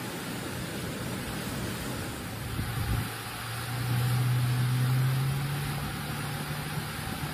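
Muddy flash-flood water rushing down a desert wash, a steady noise of running water. From about three seconds in until near the end, a low motor hum rises slightly in pitch over it and is loudest around the middle.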